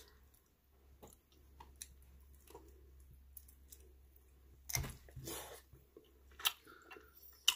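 Close-miked chewing of grilled octopus: wet mouth clicks and smacks, with a louder burst of chewing about five seconds in.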